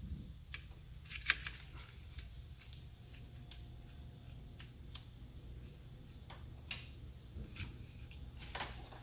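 Light, scattered clicks and taps of clutch plates being handled and slid onto the clutch basket and hub, with the sharpest click about a second in and a few more near the end, over a low steady hum.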